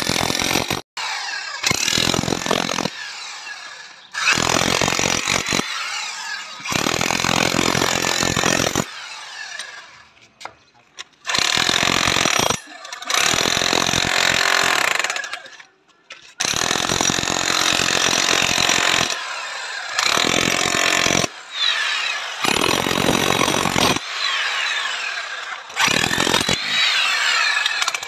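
iBELL DH10-78 electric demolition hammer chiselling into a concrete floor, running in repeated bursts of one to three seconds with short pauses between them.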